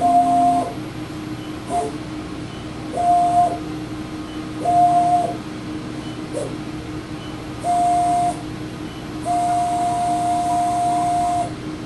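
Motorized stage drives of a Ram Optical Sprint CNC-300 video measuring machine whining as they move between measurement points under program control. There are about five moves, each a steady tone lasting from half a second to two seconds, the longest near the end, over a constant low hum.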